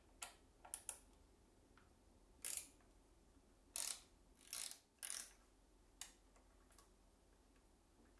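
Irregular clicks and short scrapes of a small metal part being fitted by hand onto a circular saw's plastic blade guard, with a few longer rasping scrapes in the middle.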